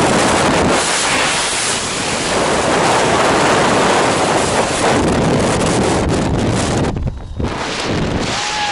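Loud, steady freefall wind rushing over a skydiver's camera microphone. It cuts off abruptly about seven seconds in as the parachute opens and the fall slows.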